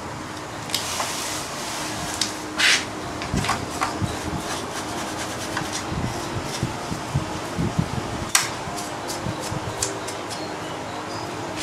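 Electric fan running steadily. Over it come irregular clicks, taps and short scraping brushstrokes as a plastic printer chassis is handled and dusted with a paintbrush, the loudest scrape about two and a half seconds in.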